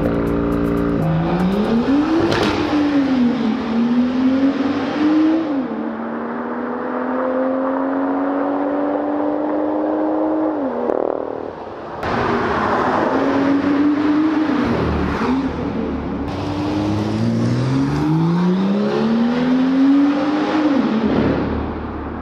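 BMW M2 exhaust inside a road tunnel under hard acceleration: the engine note climbs and drops back at each upshift, several times through the gears. A second run starts about halfway through.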